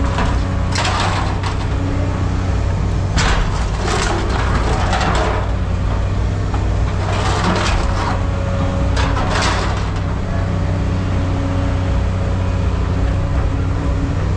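A heavy machine's engine running steadily while scrap is moved, with about five short crashing, clattering noises at irregular intervals.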